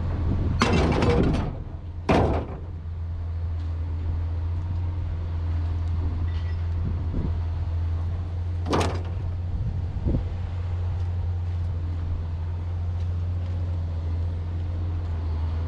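An engine runs with a steady low hum while scrap metal crashes: a long crash about half a second in, a short one about two seconds in, another near the nine-second mark, and one more starting at the very end.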